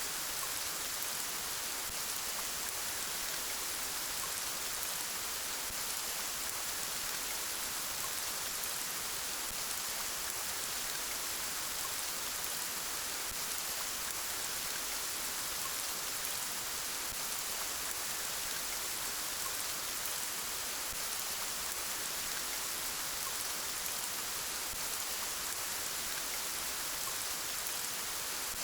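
Steady, soft rain falling, an even hiss of many drops with no thunder or separate sounds.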